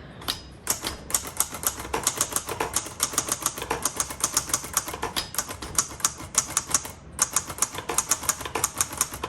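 1956 Hermes Rocket portable manual typewriter being typed on, rapid key strikes at about five or six a second, with a short pause about seven seconds in.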